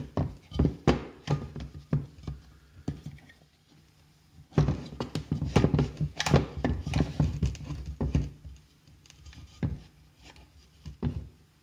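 Hands handling a snowmobile recoil starter with its new rope: irregular clicks, taps and light knocks of plastic and metal parts, with a quieter pause about three to four and a half seconds in.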